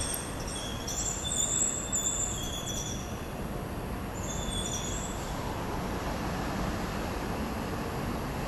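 A high-pitched squeal, heard in two spells in the first half, over a steady low rumble of city noise.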